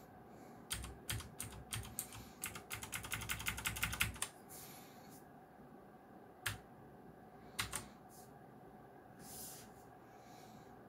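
Clicky blue-switch keys on a Geekstar × Deck Hassium Pro 108 mechanical keyboard being pressed. A few separate clicks lead into a quick run of about ten presses a second, followed later by two single clicks.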